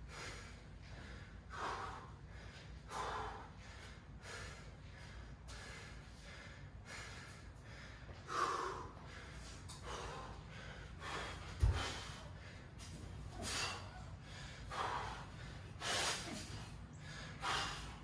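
A man breathing hard and deeply, recovering from sets of muscle-ups, with a loud breath every second or so, stronger in the second half. One dull thump comes about two-thirds of the way through.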